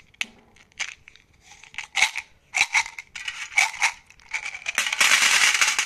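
Skittles being shaken out of a plastic tube and clattering into a metal tin in short bursts, then pouring in a dense continuous clatter for about the last second.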